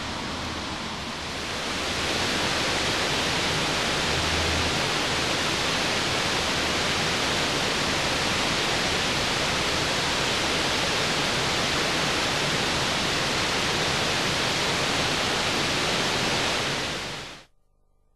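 Rushing river water with a small stream cascading into it, a steady, even rush that cuts off suddenly near the end.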